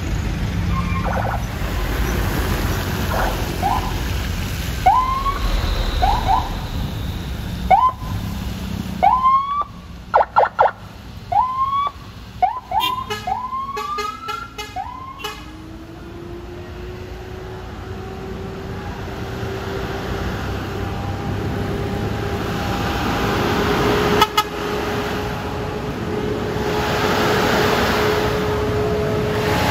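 Short rising siren whoops, repeated about once a second, with a quick run of rapid pulsing blasts near the middle. Then a heavy truck engine, the MAN tractor unit hauling a railway carriage, rising in pitch as it pulls and settling into a steady drone that grows louder as it comes closer.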